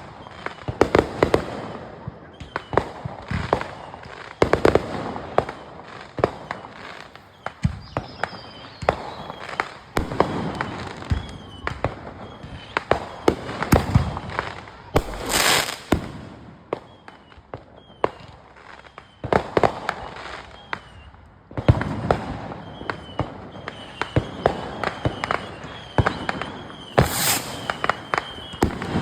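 Fireworks going off: an irregular run of sharp bangs and crackles, with two short high hisses, one about halfway through and one near the end.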